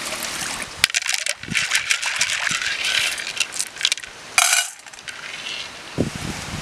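Water pouring and splashing into a large cooking pot, an uneven rush full of sharp drips and clinks, with a brief louder gush about four and a half seconds in.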